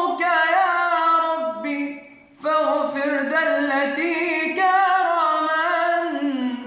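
A young man singing an Islamic ibtihal (religious supplication) unaccompanied, drawing out long melismatic phrases with wavering, ornamented notes. He breaks off briefly about two seconds in, then sings one long phrase that falls in pitch near the end.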